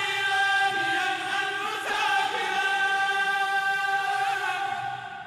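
Voices chanting together, holding one long drawn-out note that breaks off near the end.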